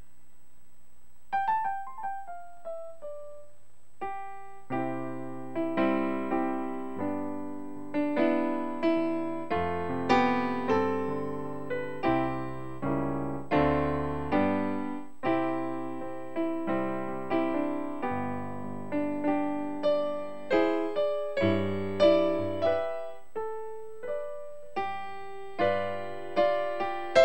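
Piano sound played on a Yamaha CP stage piano: a quick falling run of notes about a second in, then a slow string of chords, each struck and left to die away.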